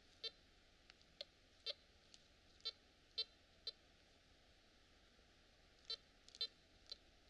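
Metal detector giving short, buzzy beeps as its search coil is swept over the ground. There are about ten brief signal tones at irregular intervals: a run in the first four seconds, then a cluster near the end.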